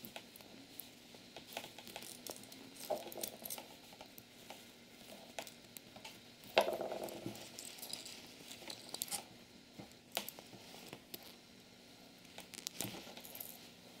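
Small scattered clicks and rustles of fingers handling Cat5e twisted-pair wires and pressing them into the plastic slots of an RJ-45 keystone jack, with a louder knock about six and a half seconds in.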